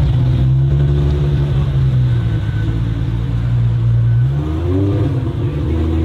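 Supercar engine running at a steady pitch, which dips and climbs again in a short rev about four and a half seconds in.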